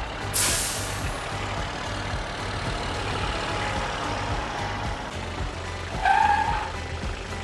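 Tractor engine running steadily as it drives, with a short loud hiss just under half a second in and a brief high-pitched tone about six seconds in.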